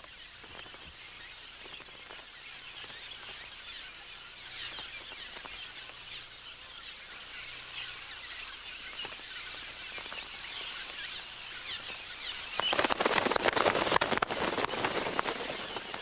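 A cliff swallow colony chattering: many short, high calls and twitters overlapping without a break. Near the end a louder rushing noise rises for a couple of seconds and then eases off.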